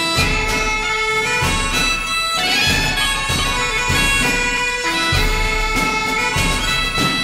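Instrumental background music: a melody of held notes over a steady low drone.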